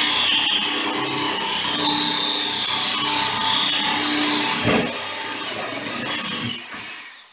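DeWalt cordless drill grinding a hole into bathroom wall tile, the motor whining steadily and then winding down and stopping near the end.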